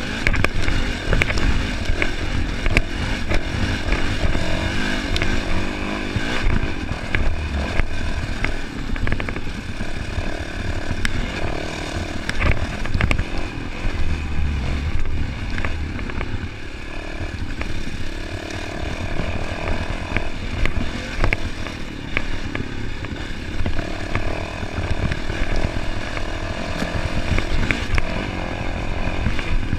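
Dirt bike engine running on a rough trail, its revs rising and falling as the rider works the throttle. Under it sits a heavy low rumble, with frequent short rattles and clicks from the bike jolting over the ruts.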